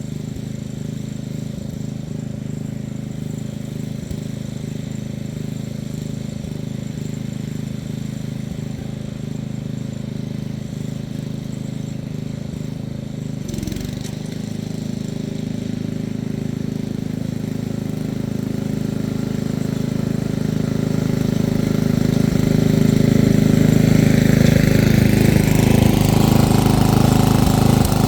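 A small engine running steadily, growing louder over the second half, with a brief knock about halfway through.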